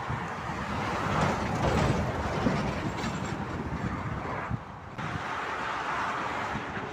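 Semi-trailer truck driving past, its engine and tyre noise swelling about a second or two in. After a sudden cut about five seconds in, steady motorway traffic noise follows.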